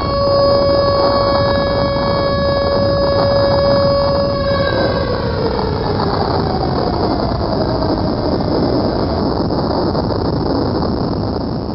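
Air-raid siren sound effect holding a steady wail over a continuous heavy rumble, then winding down in pitch from a little under halfway through.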